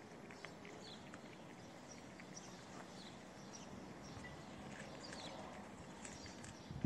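Stray cats eating wet food from plastic trays: faint, irregular wet chewing and clicking, with a sharper knock near the end.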